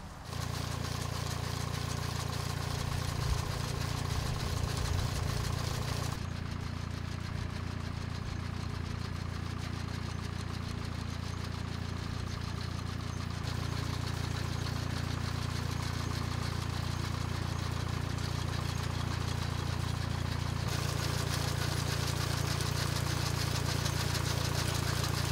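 Tractor engine running steadily while it carries a mechanical pruner along a row of hedge-trained apple trees. The sound shifts abruptly three times, about 6, 13 and 21 seconds in.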